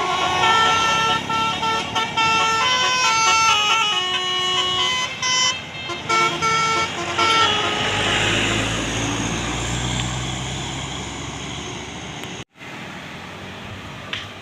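Telolet basuri musical horn on a passing vehicle playing a quick tune of short stepped notes, several tones at once, for about seven seconds. Then a low vehicle rumble passes and fades away.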